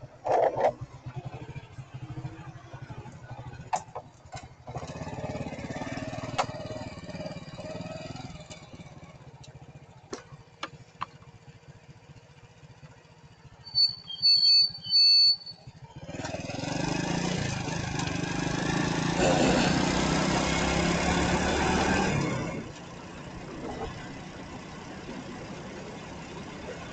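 Water vending machine beeping three times, then water rushing out into a container for about six seconds before it stops abruptly, over a background of street traffic.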